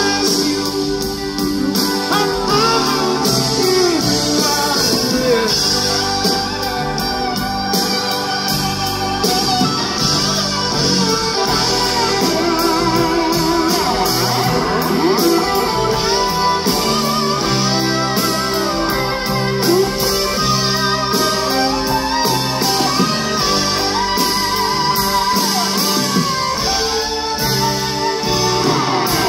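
A live rock band plays an instrumental passage, led by a red semi-hollow-body electric guitar playing lead lines with bent, wavering notes over drums and bass.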